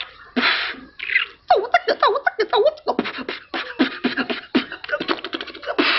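Vocal beatboxing by mouth: a short hiss, then from about a second and a half in a fast run of clicks and pops mixed with vocal sounds sliding up and down in pitch, ending in a long hiss.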